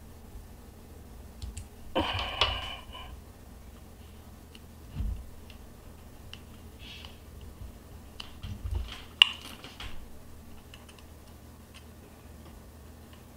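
Small scissors snipping a foam light-seal strip against a film camera body, followed by scattered light clicks and a dull knock as the camera is handled on a wooden table, with one sharp click a little after 9 seconds in.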